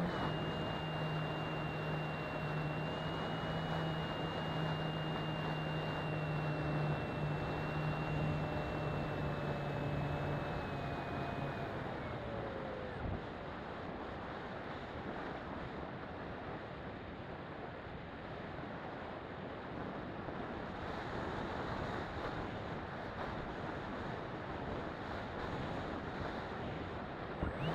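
RC model plane's motor and propeller whining steadily, heard from the onboard camera, then winding down and cutting out about twelve seconds in. The plane glides with only wind rushing over the microphone until the motor spools back up right at the end.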